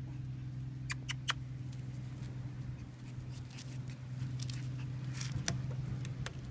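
Miniature schnauzer puppies' paws scuffling on gravel: scattered small clicks and crunches of pebbles, with a cluster of sharp clicks about a second in. A steady low hum runs underneath.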